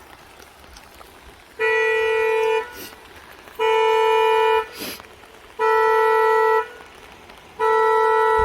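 A horn beeping in a steady repeating pattern: four one-second tones of fixed pitch, one every two seconds. A brief swish comes about five seconds in.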